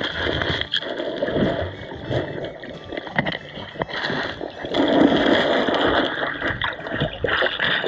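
Water gurgling and sloshing as picked up by a submerged camera in a creek, muffled, with many scattered clicks and knocks.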